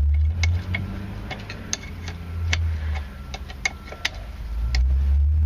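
Socket ratchet clicking in scattered sharp clicks, roughly one or two a second and unevenly spaced, as a lock nut on a floor shifter's cable bracket is undone. A steady low rumble runs underneath.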